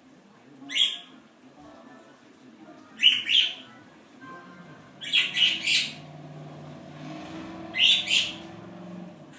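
Quaker parrot (monk parakeet) giving loud, harsh squawks in four short bursts a couple of seconds apart, one of them a quick run of three.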